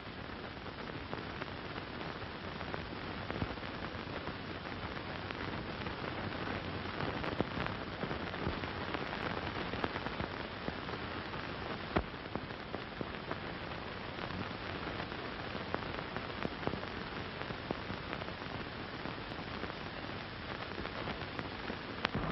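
Steady hiss with scattered faint crackles and clicks: the surface noise of an early-1930s optical film soundtrack during a wordless stretch.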